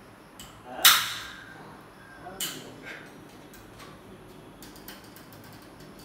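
Sharp knocks of hand tools on an aluminium window frame being fitted: one loud crack about a second in, then a couple of lighter knocks and a few faint ticks.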